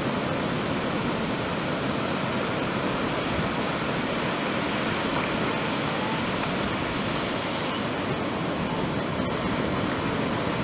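Ocean surf: waves breaking and whitewater rushing, a steady, even wash of noise with no distinct crashes standing out.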